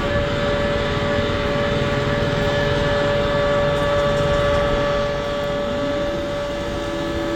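Motorised machinery running at a steady speed with a constant whine, and a second motor spinning up and settling into its own steady pitch about six seconds in.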